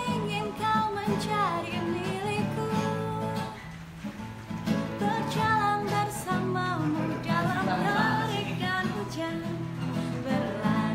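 A woman singing a slow melody over acoustic guitar chords, with a brief lull about four seconds in.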